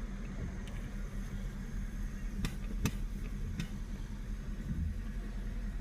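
Mercedes engine idling steadily with a low hum, with several faint clicks in the first few seconds.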